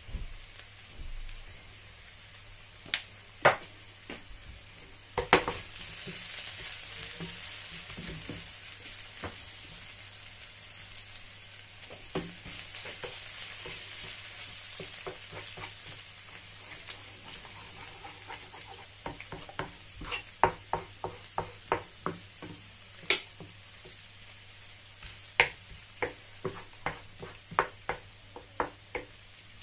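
Chicken, onions and green peppers sizzling in a frying pan while a wooden spoon stirs them. Sharp knocks of the spoon against the pan come now and then, then in a quick run of about two or three a second from about two-thirds of the way through, as the fried eggs are broken up and scrambled.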